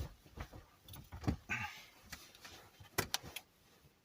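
Scattered light clicks and knocks with a short rustle about a second and a half in, and a quick run of knocks near the end: a person shifting about and sitting up on a bed.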